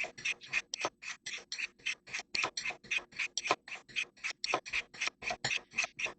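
Knife blade drawn quickly down the fine ceramic rods of a Spyderco triangular sharpener, a rapid, even run of short rasping strokes, about five a second, honing the edge of a thin paring knife.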